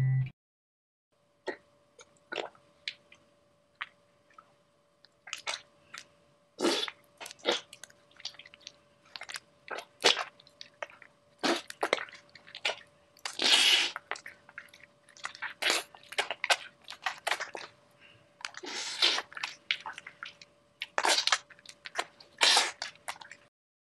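Sound effects for moving clay figures: a string of short, irregularly spaced noises, a few lasting about half a second, over a faint steady hum.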